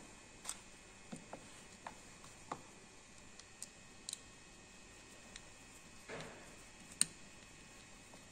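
Faint scattered clicks and taps of a plastic Schuko plug being handled while its strain-relief clamp screws are loosened with a screwdriver, with a short scrape a little after six seconds and a sharper click about a second later.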